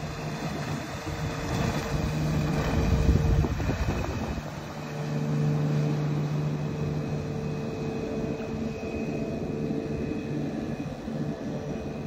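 Engine of a 2006 Sea Ray 185 Sport bow rider running at speed as the boat makes a pass, a steady drone that swells about three seconds in, dips briefly, then holds. Wind buffets the microphone.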